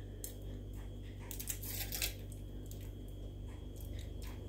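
Foil wrapper being peeled off a wedge of processed triangle cheese, giving a few quick crinkling rustles about a second and a half in, over a steady low hum.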